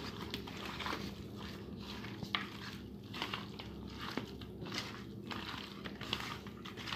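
Raw mutton pieces being mixed by hand with spices in a stainless steel bowl: soft, irregular squishing and rubbing, with a few light knocks against the bowl.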